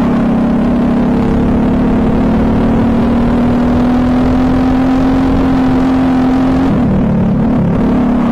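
Briggs & Stratton LO206 kart engine, a single-cylinder four-stroke, heard from the driver's seat. It pulls hard down the straight, its pitch climbing slowly for about six and a half seconds, then drops and wavers near the end as the driver lifts off for the corner.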